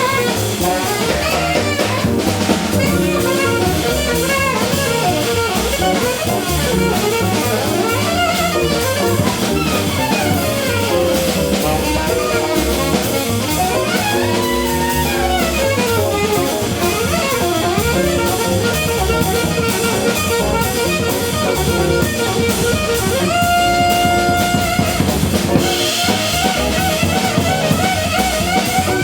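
A small jazz combo playing: drum kit and bass keep time under guitar and a saxophone melody. About 23 seconds in, a single note is held for a couple of seconds.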